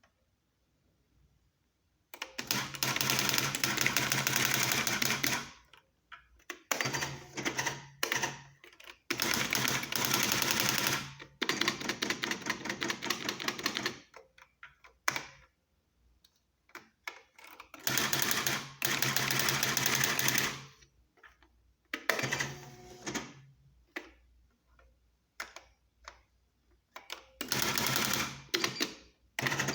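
Panasonic Spell-minder R310 electronic typewriter typing. It comes in several dense runs of rapid strikes lasting two to three seconds each, with a low hum under them, and between the runs scattered single strikes and short pauses. It starts about two seconds in.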